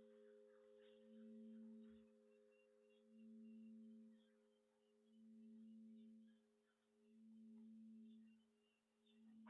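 The faint, fading hum of a struck meditation bell, its tone swelling and ebbing about every two seconds as it dies away. A new loud strike begins right at the end.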